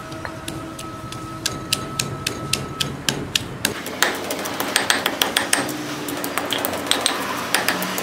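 Granite pestle pounding red chilies, shallots and garlic in a granite mortar to make Thai curry paste: repeated stone-on-stone strikes, a few a second, growing faster and denser about halfway through.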